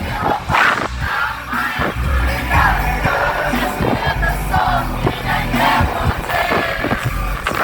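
Live pop concert music with a heavy bass beat, the crowd singing along loudly.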